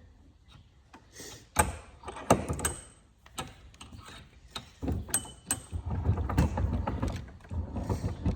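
Handling clatter of a chainsaw being moved and turned around on a bench: a few sharp clicks and knocks, then about three seconds of rattling and knocking with a low rumble. The saw's engine is not running.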